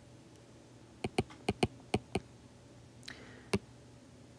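Apple Pencil tip tapping on an iPad's glass screen: a quick run of about eight light taps, then a single tap near the end.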